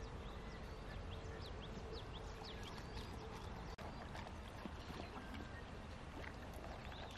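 Riverside ambience: an even wash of flowing river water and light wind, with many short, high bird chirps over it.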